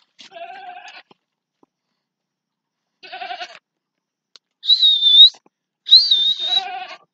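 Young goat kids bleating, four separate calls; the two loudest, near the end, carry a high, wavering, whistle-like tone.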